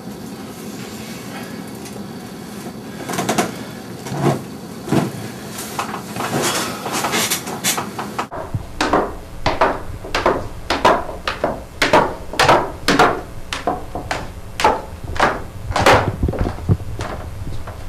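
Footsteps on a hard floor, about two steps a second, starting about eight seconds in. Before them, a few scattered knocks and rustles.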